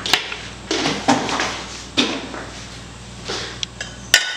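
Scattered knocks and clinks of kitchen utensils being handled, about one a second. The loudest comes near the end: a sharp metallic clink that rings on briefly.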